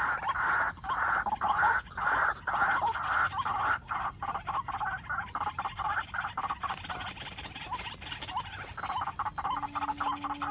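White-breasted waterhen calling: harsh, croaking notes repeated over and over, about two to three a second, turning faster and busier about four seconds in.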